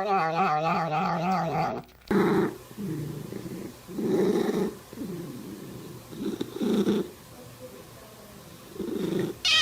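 Domestic cat's long drawn-out meow, falling in pitch and ending about two seconds in, followed by a series of low rumbling vocalizations about once a second.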